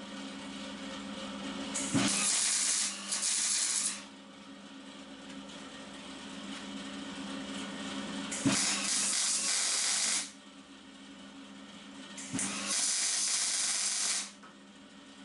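Three short gas-shielded MIG tack welds, each a crackling sizzle of about two seconds that starts with a sharp click. A steady low hum carries on in the pauses between them.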